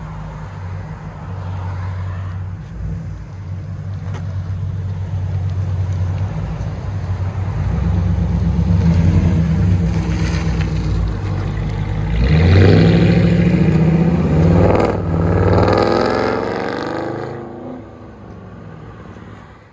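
Dodge Durango R/T's 5.7-litre Hemi V8 running through Black Widow Neighbor Hater mufflers and 5-inch tips. It runs fairly low at first, then the exhaust grows louder from about eight seconds in, rising and falling in revs several times, before dropping back and cutting off suddenly near the end.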